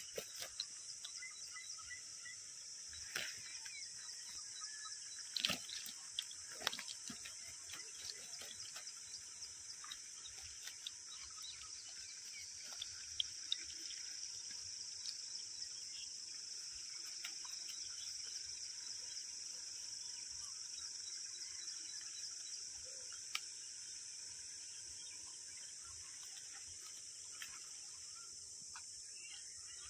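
Steady high chorus of crickets, with scattered faint clicks and knocks over it.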